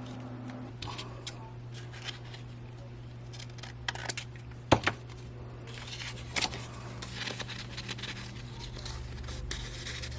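Paper and craft pieces being handled and shuffled on a work table: scattered light scrapes and taps, with one sharp tap a little under five seconds in, over a steady low hum.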